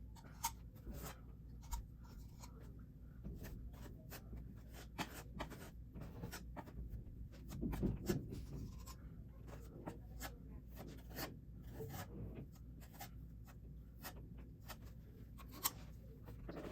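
Wood filler (plastic wood) being spread and scraped over a foam-filled hole in a hollow-core door: faint scraping with scattered light taps and clicks, a little busier about eight seconds in.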